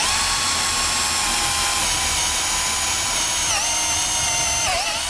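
Cordless drill boring into plywood, its motor running at a steady high whine. The pitch sags briefly twice near the end as the bit loads up in the wood.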